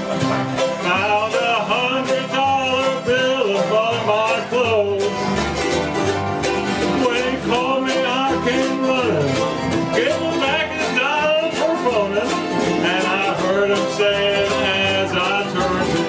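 A string band of ukuleles, acoustic guitars and a banjo playing a country song, with voices singing along.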